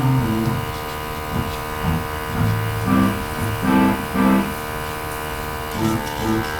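Background music with low plucked notes, over a steady electric buzz like a small motor.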